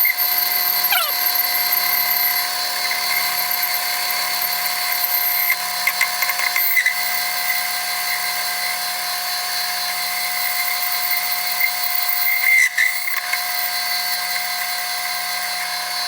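Metal lathe running while its cutting tool turns down aluminum bar stock in a continuous pass: a steady whine and hiss, with a few brief scraping marks from the cut.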